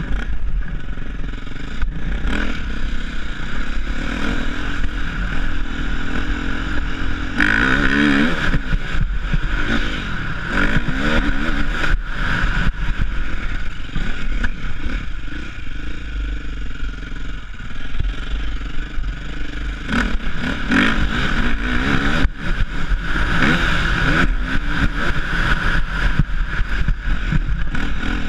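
Motocross dirt bike engine under way, its pitch rising and falling again and again with the throttle and gear changes, with a constant wind rumble on the helmet camera's microphone.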